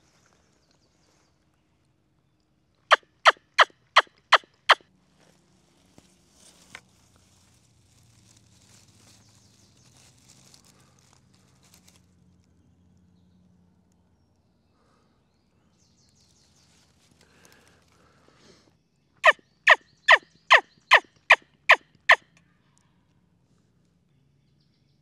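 Turkey yelps on a wingbone call: a run of five sharp yelps about three seconds in, then a run of eight about nineteen seconds in, with faint rustling between.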